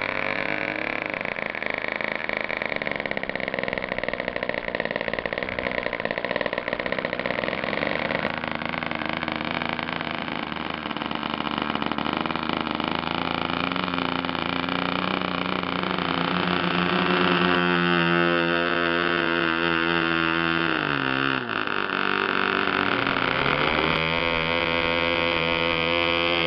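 HB 61 two-stroke glow engine of a model biplane running steadily. About twenty seconds in its speed drops away, the pitch sliding down, then picks up again a couple of seconds later.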